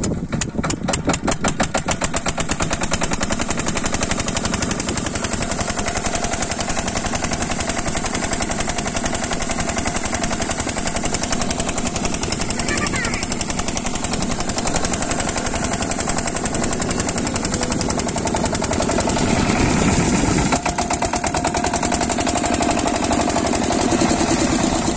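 Single-cylinder diesel engine of an 8 hp water pump set firing up at the start after being hand-cranked, then running steadily with a rapid, even beat.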